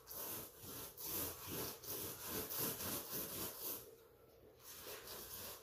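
Paint roller worked quickly up and down a wall, its paint-loaded nap rubbing against the surface in a rhythmic rasp of about three strokes a second. It eases off about four seconds in.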